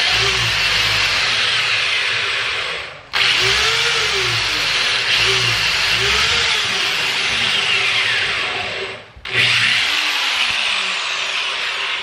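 Corded electric drill boring a hole through a cabinet door for knob hardware, running steadily with its pitch wavering as it bites. It stops briefly about three seconds in and again about nine seconds in, then starts up again each time.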